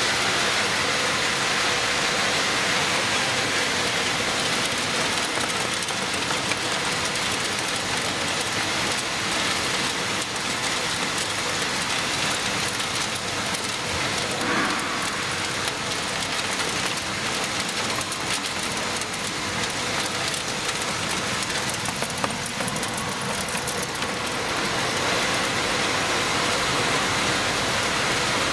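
Radiator recycling line running steadily: a dense, even machine noise with a fine rattle of small shredded metal pieces coming off the conveyor belt.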